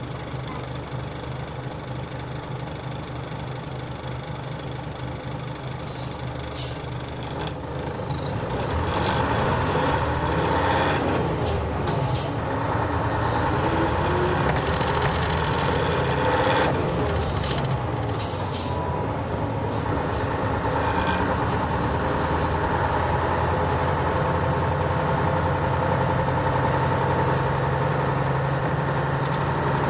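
Nissan Diesel city bus's diesel engine heard from the cabin floor: running low at first, then from about eight seconds in it pulls away, its pitch rising and falling through several gear changes. Short sharp hisses of air from the brakes come a few times along the way, and the engine then settles into a steady run.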